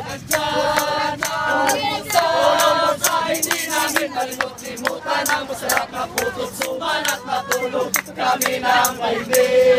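A group of voices singing together in chorus, with sharp handclaps keeping the beat.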